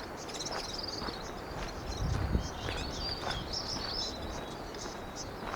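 Small birds chirping and twittering over steady outdoor noise, with a brief low gust of wind buffeting the microphone about two seconds in.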